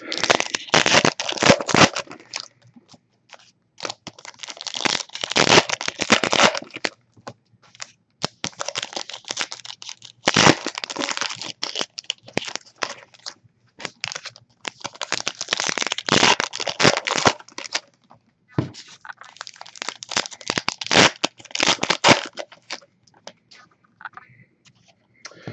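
Foil trading-card pack wrappers being torn open and crinkled by hand, in crackling bursts of a second or two with short pauses between.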